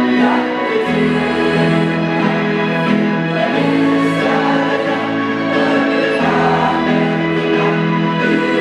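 School choir singing a slow anthem in long held notes over instrumental accompaniment with a deep sustained bass line.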